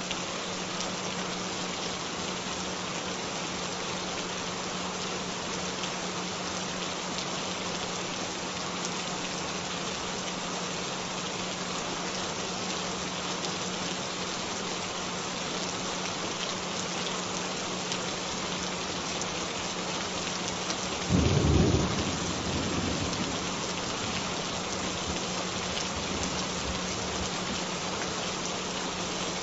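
Steady rainfall with a steady low tone humming under it. About 21 seconds in, a short loud rumble of thunder rises and fades over a couple of seconds.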